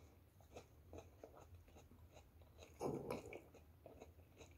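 Faint chewing of a battered, deep-fried vegetable fritter, a few soft crunches and mouth clicks, with a short louder bout about three seconds in.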